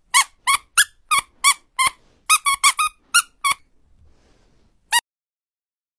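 Small puppy giving a rapid run of short, high-pitched yelps, about a dozen in three and a half seconds, then one more about five seconds in.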